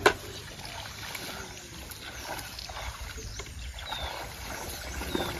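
Faint splashing and sloshing of shallow pond water as people wade and haul a fishing net through it, with a single sharp knock right at the start.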